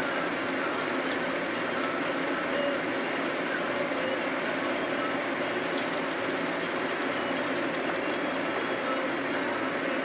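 A steady, even mechanical-sounding noise at a constant level, with a few faint ticks.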